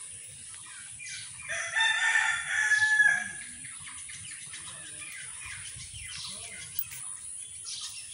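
A rooster crowing once: one loud call of about a second and a half, starting about a second and a half in, over a steady high-pitched hiss.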